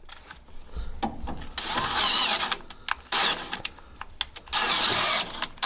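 Cordless drill run in short bursts, drilling out a bolt hole in the steel car frame at the sway bar mount. Its motor whine wavers in pitch as the bit loads up, once about two seconds in and again near the end, with a few clicks between.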